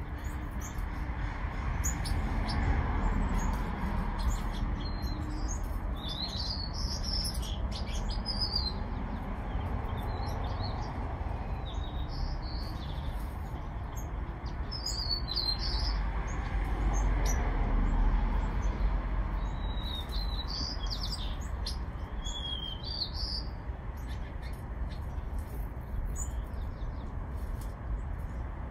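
Small songbirds chirping in scattered short calls, in two busy spells, over a steady low rumble.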